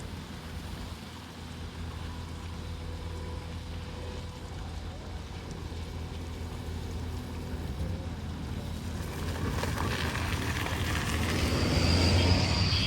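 Motor vehicle engine rumbling on the road, growing steadily louder over the last few seconds as the vehicle draws near, with a thin high whine near the end.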